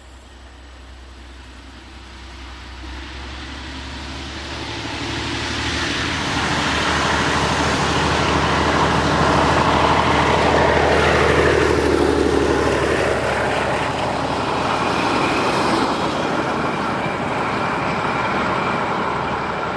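Narrow-gauge ÖBB class 2095 diesel-hydraulic locomotive hauling passenger coaches past: its engine and wheels on the rails grow louder over the first ten seconds, are loudest as it passes with a falling pitch, then ease off slowly as the coaches follow.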